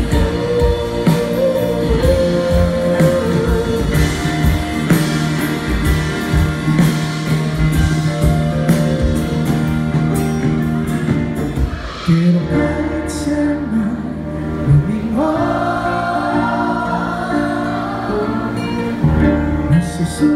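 Live band music: acoustic guitars, violin, bass and drums with singing. The drums drop out about halfway through, leaving the guitars and a sung melody.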